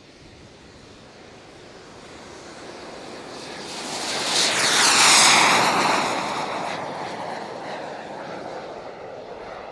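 Radio-controlled model jet's turbine passing close by: a rushing high whine that swells to a peak about five seconds in, drops in pitch as the aircraft goes past, then fades away.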